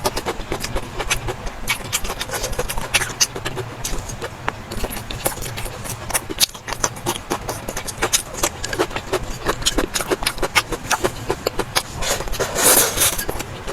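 Close-miked eating sounds: a person chewing and smacking, an irregular run of wet clicks, with a louder, noisier burst near the end.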